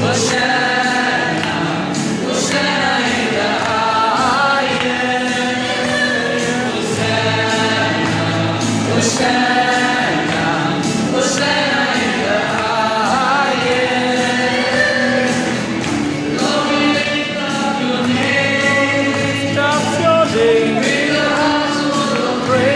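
A choir singing a Christian worship song with instrumental accompaniment and percussion.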